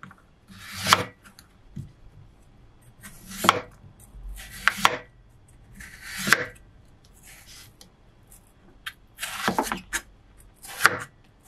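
Chef's knife slicing thick strips of rind off a winter melon, each stroke a short scrape through the firm flesh ending in a knock on the wooden cutting board; several cuts, one every second or two.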